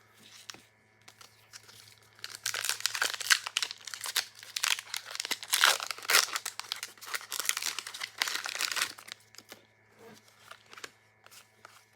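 Crinkly plastic or foil packaging being handled and crumpled, in a dense stretch of crackling lasting about seven seconds from about two seconds in, with scattered soft clicks and rustles either side.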